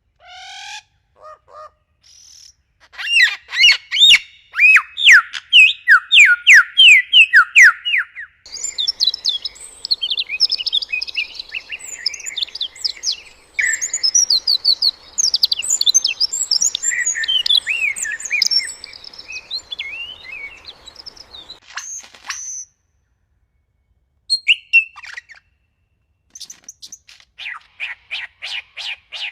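Birds calling in several spliced recordings. First come fast runs of short chirps, each falling in pitch. Then a dense tangle of high chirps and whistles plays over a steady background hiss, broken by a short silence about 23 seconds in, and near the end there is another run of chirps.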